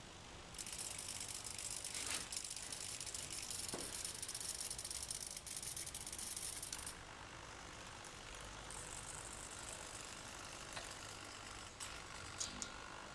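Hobby servo motors of a small robot arm whirring as their gears drive the arm. The whirring comes in two stretches of several seconds, and a few sharp clicks follow near the end.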